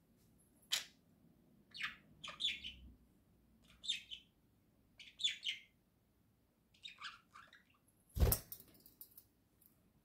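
Budgerigars chirping and chattering in short bursts of high calls, about six bursts spread through. A sharp knock about eight seconds in is the loudest sound.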